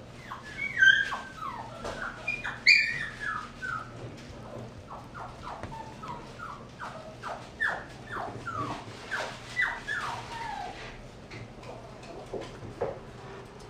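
Puppy whining: a rapid series of short, high whimpers that fall in pitch, with two louder yelps in the first three seconds, trailing off after about eleven seconds.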